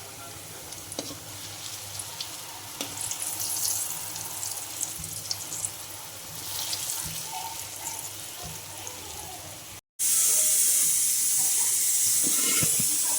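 Kitchen sounds: water running and splashing with scattered small clinks. After a cut about ten seconds in, a louder steady hiss like food sizzling in hot oil.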